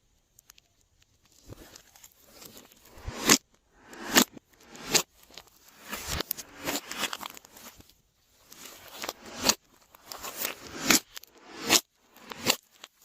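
Glossy slime being squished and stretched by hand: irregular sticky squelches with sharp pops and clicks, starting after a quiet first second.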